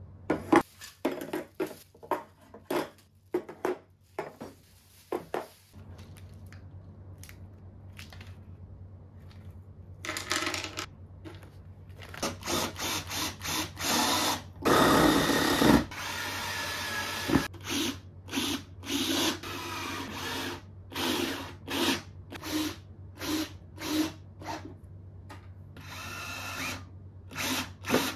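Power drill run in many short bursts, with one longer run of about a second and a half midway.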